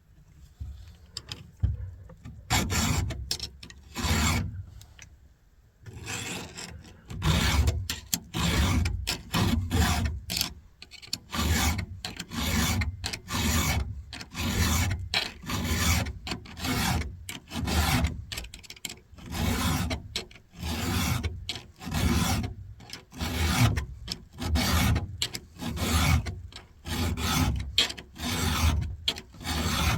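A file rasping across the cutter teeth of a rusty chainsaw chain, in repeated strokes about one a second: the chain is being hand-sharpened, its worn-down teeth reshaped.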